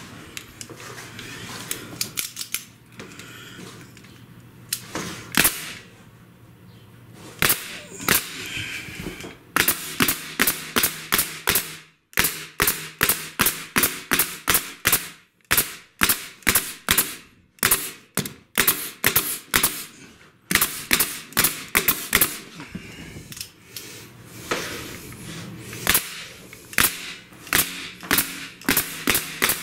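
Pneumatic nail gun firing fasteners into plywood underlayment on a floor, a sharp crack with each shot. A few scattered shots at first, then a steady run of about two to three shots a second from about ten seconds in.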